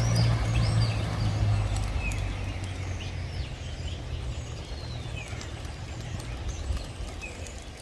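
Birds chirping, many short high chirps, over a low hum that is loudest at first and fades away over the next few seconds.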